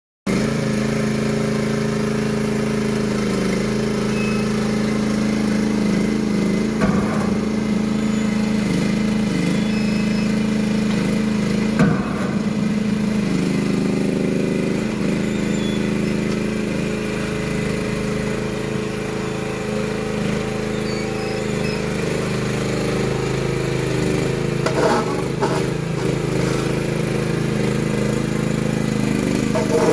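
Small diesel engine of a TK13 mini excavator running steadily as the machine tracks and works its boom, its pitch shifting slightly at times. A few short knocks sound over it, the loudest about twelve seconds in.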